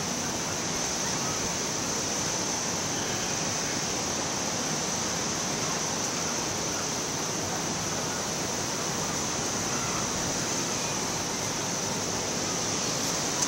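Steady, even rushing of distant ocean surf and breeze, with a thin steady high hiss on top and no single sound standing out.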